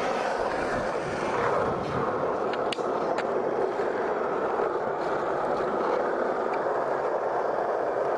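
Skateboard wheels rolling on asphalt with a steady, even rumble, and a couple of light clicks about three seconds in.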